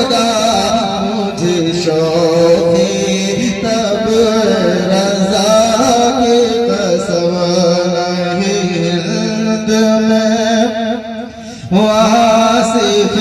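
Solo male voice singing a naat recitation in a long, wavering, ornamented melodic line, held without clear words, with a brief break near the end before the voice comes back in.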